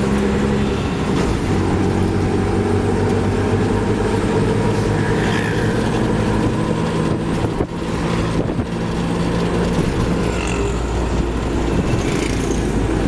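Auto-rickshaw's small engine running steadily as it drives, heard from inside the open cab with road noise; the engine sound dips briefly about two-thirds of the way through.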